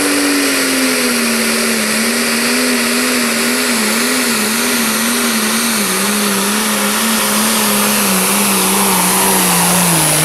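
Pro stock pulling tractor's turbocharged diesel engine at full power under load as it drags a weight-transfer sled down the track. Its pitch wavers up and down as the tractor bounces, then sags lower in the second half as the sled bogs it down.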